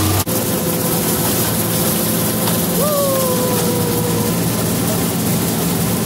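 Combine harvester running while harvesting soybeans, heard from inside the cab: a steady machine drone with a whine that jumps up in pitch about three seconds in and slowly sinks back.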